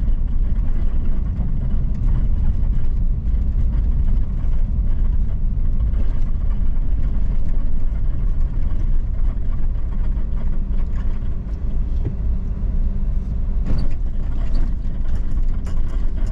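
2007 Chevy Silverado 1500 pickup driving on a gravel haul road: a steady, loud rumble of engine and tyres, with a few short clicks near the end.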